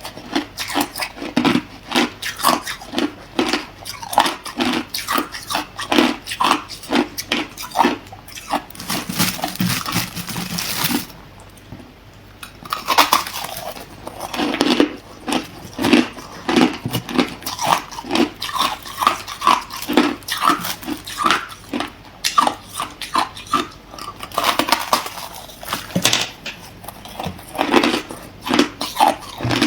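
Hard clear ice being bitten and chewed: a rapid, continuous run of crisp crunches, several a second, with a brief lull about eleven seconds in.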